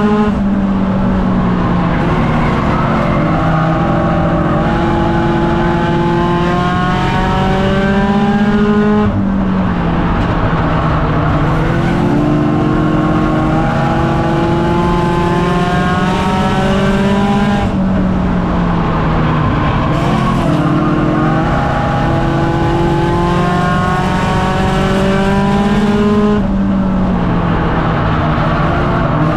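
Race car engine heard from inside its own cockpit, running hard under racing load. Its pitch climbs slowly, then drops sharply as the driver lifts, three times about every eight and a half seconds.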